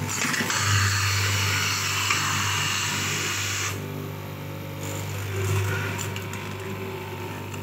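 Straight-knife cloth cutting machine running with a steady motor hum; for about the first three seconds its up-and-down blade cuts through a thick stack of fabric layers with a loud rasping noise that stops abruptly, leaving the motor running on its own.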